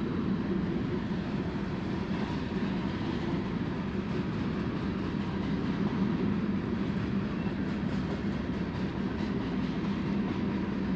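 Steady rushing of a river's current, a continuous even noise with a low rumble.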